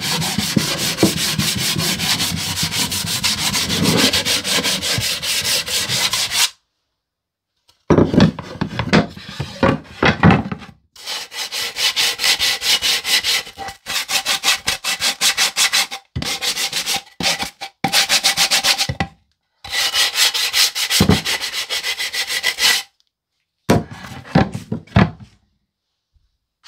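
Hand sanding a pine board with a homemade wooden sanding block fitted with a hook-and-loop pad and sanding disc: quick back-and-forth scrubbing strokes, in several spells with short pauses between.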